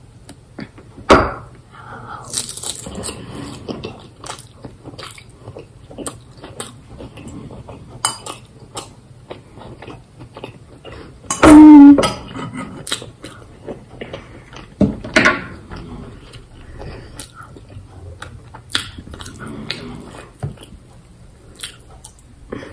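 Eating sounds: a metal fork clicking and scraping on a plate, with chewing and crunching of pasta and lettuce. Scattered clicks throughout, and one short loud sound about halfway through.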